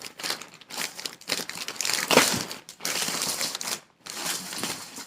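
Packaging crinkling and rustling in irregular bursts as a box is unwrapped by hand, loudest about two seconds in.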